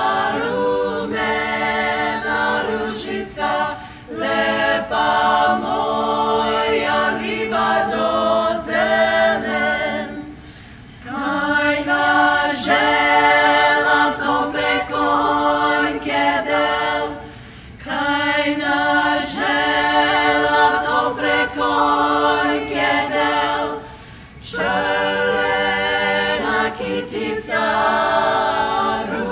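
Women's vocal ensemble singing a Croatian folk song a cappella in close harmony, with chords held over a steady low note. It comes in long phrases with brief pauses for breath between them.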